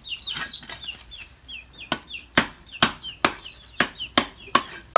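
Meat cleaver chopping through a whole trevally on a stone block: a run of about seven sharp blows, roughly two a second, starting about two seconds in. Chickens cluck and peep in the background throughout.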